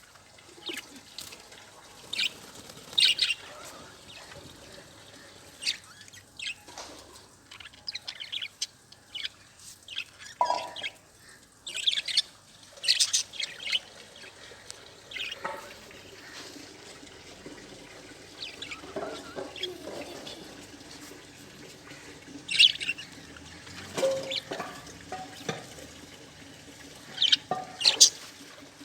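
Budgerigars chirping in short, irregular calls, with louder bursts of chatter now and then.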